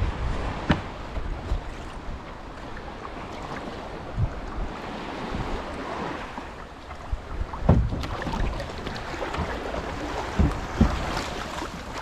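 Water splashing and lapping around a plastic kayak as it is paddled into the shallows of a sandy beach, with wind on the microphone. A few sharp knocks stand out, the loudest a little over halfway through and near the end.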